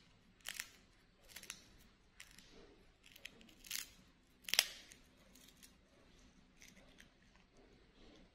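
Baby monkey eating a soft cake: a handful of short, sharp crackling and smacking noises as it bites and handles the food, the loudest about four and a half seconds in, then only faint ticks.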